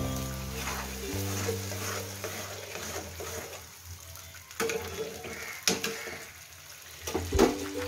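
Onion-tomato masala paste sizzling as it fries in hot oil in a metal kadai, stirred with a metal spatula that scrapes the pan and knocks against it three times in the second half, the last knock the loudest.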